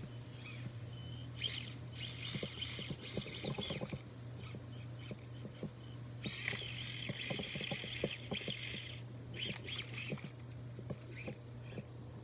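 Axial SCX24 micro RC crawler driving over rock: its small electric motor and gears whine in bursts of throttle, two longer ones in the middle, with scattered clicks and knocks of the tyres and chassis on the rocks.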